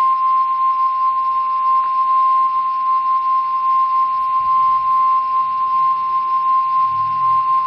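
NOAA Weather Radio warning alarm tone: one steady, loud 1050 Hz tone held without a break. It signals that a warning message is about to be broadcast.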